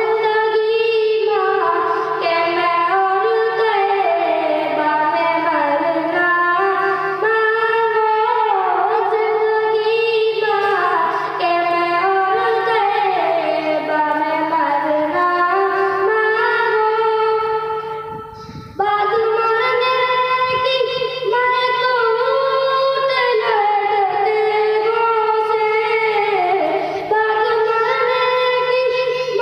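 A boy singing a naat, an Urdu devotional poem, solo into a microphone in long ornamented melodic phrases, with a brief break about two-thirds of the way through.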